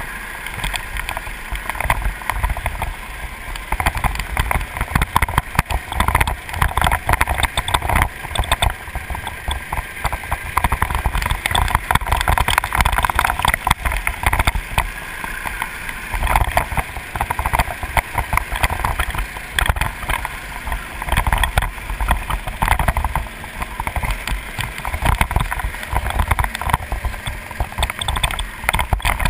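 Racing go-kart engine running hard, heard from a camera mounted on the kart, mixed with heavy wind buffeting on the microphone.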